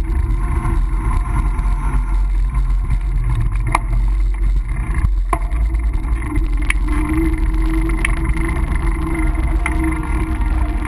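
Steady low rumble of wind and riding noise on a bicycle-mounted GoPro's microphone during a ride, with a few sharp clicks scattered through it.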